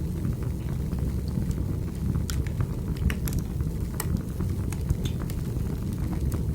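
Wood fire burning in a fireplace: a steady low rumble with scattered sharp crackles and pops from the burning logs.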